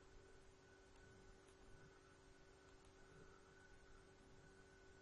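Near silence: a faint steady electrical hum from the recording setup.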